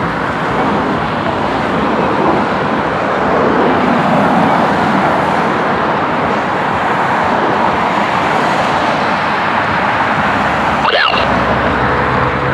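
Jet aircraft noise at an airshow: a broad, steady roar that swells a few seconds in. Near the end a radio scanner clicks on with a short squelch tone and a low hum.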